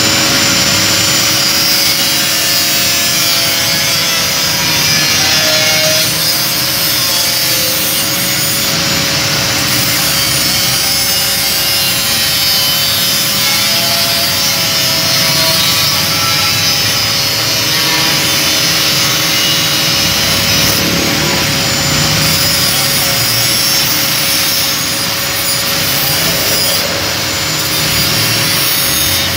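Small handheld angle grinder with a thin cutting disc running continuously and cutting through stainless steel sheet: a steady motor whine under a loud, hissing cutting noise.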